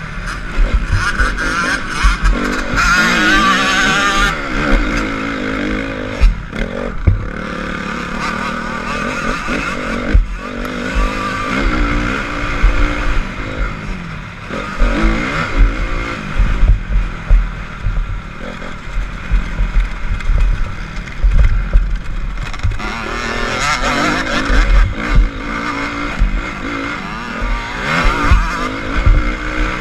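Honda CRF250 motocross bike's four-stroke single-cylinder engine heard from the rider's helmet, revving up and down as the rider accelerates and backs off around the track, with rumbling wind on the microphone and knocks from the bumps.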